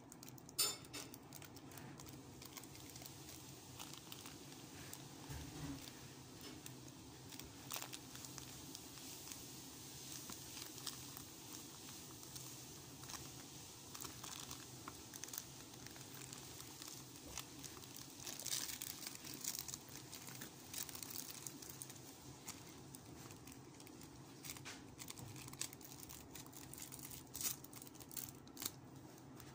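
Clear plastic packaging crinkling and rustling in the hands as a silicone bra is unwrapped, with a few sharp clicks, the loudest just under a second in.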